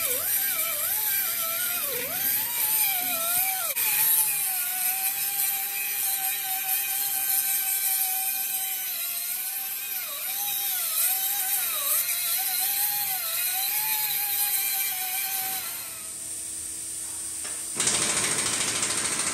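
A power tool running, its whine dipping and recovering again and again as it is loaded. Near the end it gives way to a louder, steady hiss.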